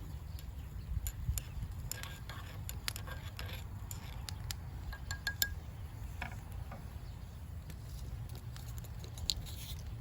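Scattered light clinks and clicks of hard objects being handled, a few with a brief ring, over a steady low rumble.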